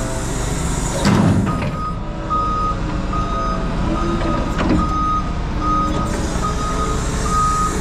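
Forklift backup alarm beeping at an even pace, about one beep every three-quarters of a second, starting about a second and a half in, over the forklift's engine running. A short clunk about a second in is the loudest moment.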